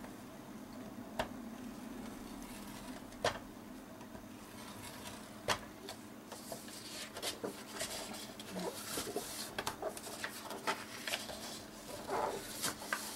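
Paper being scored on a scoring board with a bone folder and handled: three sharp clicks a couple of seconds apart in the first half, then a run of soft rustles and small clicks as the paper is turned and folded along the score line.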